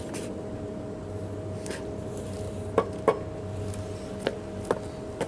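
Hammer knocking a pressure-treated wooden crosspiece down into a notched joint. A few sharp taps come in the second half: two louder ones close together, then lighter ones.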